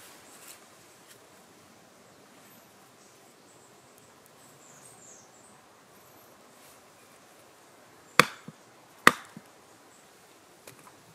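Two sharp wooden knocks about a second apart, near the end: a fixed-blade bushcraft knife driven down through a thin stick on a log, splitting it into kindling.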